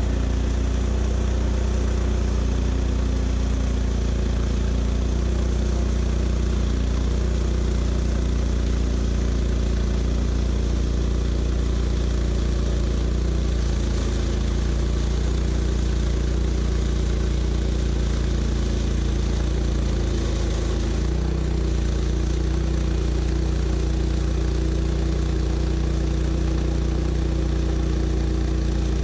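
Portable sawmill's engine running steadily with a strong low hum that holds even throughout.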